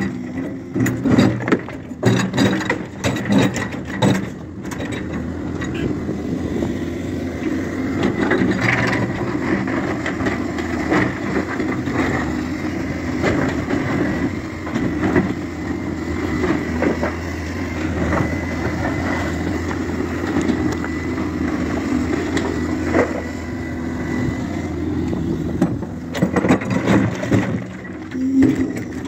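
Hyundai 140W excavator's diesel engine running steadily under load. Rocks clatter and knock into a steel truck bed in the first few seconds and again near the end.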